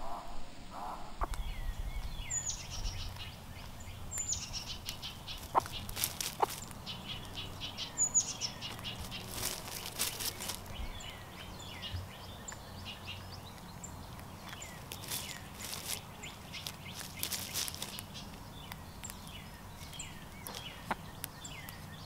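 Birds chirping outdoors: many quick, high chirps, each falling in pitch, repeating throughout. Scattered crackling rustles in dry leaf litter come and go, over a low steady hum.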